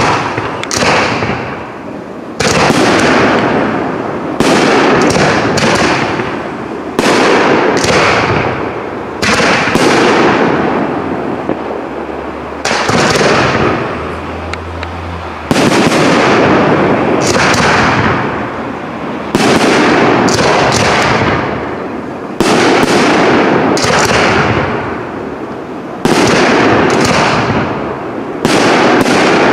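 Aerial firework shells bursting in a professional display, one loud bang about every two seconds, each followed by a long rumbling echo that fades before the next.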